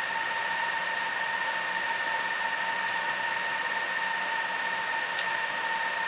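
Cooling fans of a Tyan Transport GT24 1U rackmount server spinning at about 10,000 RPM: a steady rushing noise with a steady high whine. A faint click about five seconds in.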